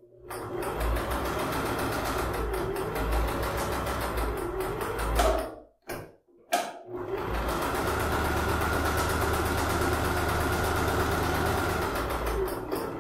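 Electric household sewing machine stitching a curved seam through layers of fabric and batting, its needle running at a rapid even rate. It stops briefly about six seconds in, then starts again with a click and runs on steadily.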